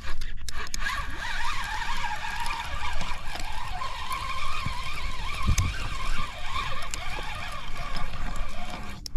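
Spinning reel being cranked, its gears whirring with a wavering pitch and a few clicks, stopping abruptly near the end.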